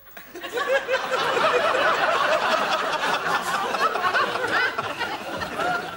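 Studio audience laughing, many voices together, swelling about half a second in and holding for several seconds before easing off near the end.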